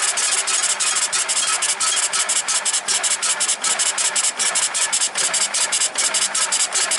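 Kohler engine on a stump grinder being cranked over, a loud rapid uneven chugging that has not settled into running. The choke is closed and the freshly cleaned carburetor is still dry, so the vacuum-driven fuel pump has yet to deliver fuel.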